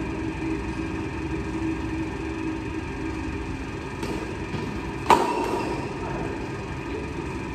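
Badminton rackets hitting a shuttlecock in a rally: a faint hit about four seconds in, then a loud, sharp crack about a second later with a short ring in the hall. A steady low hum lies underneath.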